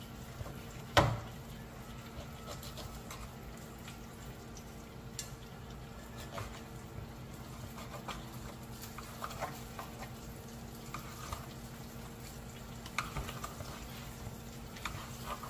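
Lobster tail and corn frying quietly in butter and oil in skillets, under a faint steady hum. A black nylon utensil knocks sharply on the pan about a second in, then makes light taps and scrapes while the tail is turned and pressed open.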